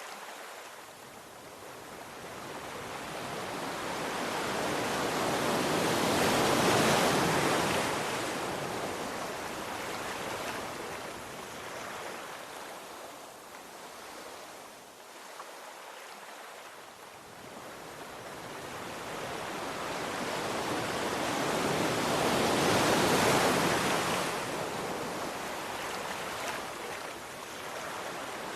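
Ocean surf washing onto a shore as a steady hiss of water. The surf swells to a loud peak twice, about a quarter of the way in and again near the end.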